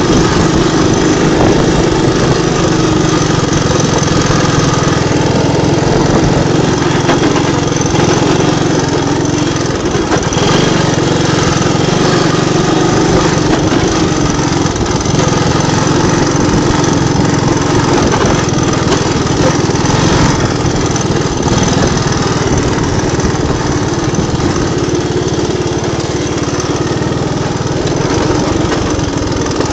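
Three-wheeler ATV engine running loud and steady, heard up close.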